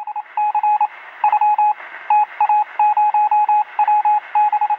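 Morse-code-style beeps: a single tone keyed on and off in quick runs of short and long pulses over a steady hiss of radio static, used as a news intro sound effect.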